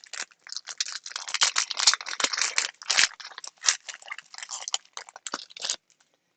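Trading cards being handled and shuffled: a rapid run of rustling and clicking that stops about a second before the end.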